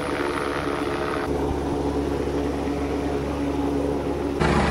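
Police helicopter flying close by: a steady drone of engine and rotor. Its tone changes abruptly about a second in and again near the end.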